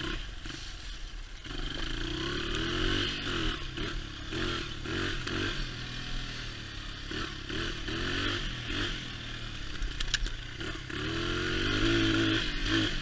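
Honda XR80R's small air-cooled four-stroke single-cylinder engine running as the dirt bike is ridden, its revs rising and falling again and again as the throttle is worked. The bike is not running well, which the owner puts down to compression or the spark plug. A sharp clack about ten seconds in.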